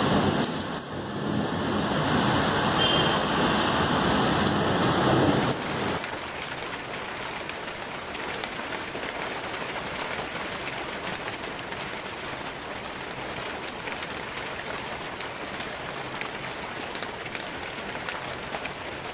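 Heavy rain falling steadily, loud until about five and a half seconds in, when it drops suddenly to a quieter, even hiss of rain with faint scattered drop ticks.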